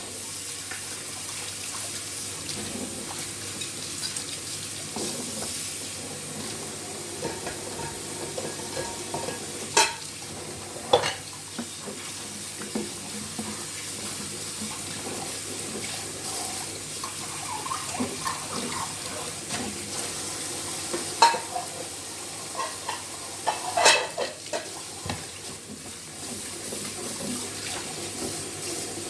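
Tap water running steadily into a kitchen sink while dishes are washed by hand, with a few sharp clinks of dishes knocking together.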